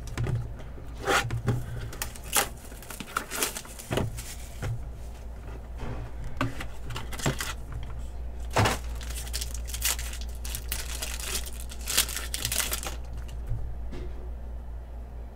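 Trading card pack wrappers crinkling and tearing as packs are opened, in irregular short rustles and rips that stop about 13 seconds in. A steady low hum runs underneath.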